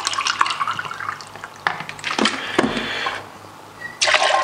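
Water pouring from a plastic bottle into a drinking glass, then a few glassy knocks about two seconds in. Near the end, a glass of water is tipped into a blender jar of soaked almonds with a louder splashing pour.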